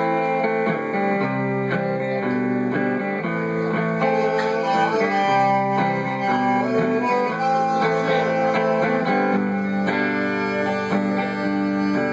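Guitar playing the instrumental introduction to a slow country song, held chords and picked notes.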